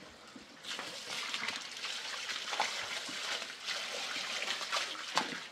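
Water running and splashing, starting about a second in, with uneven surges.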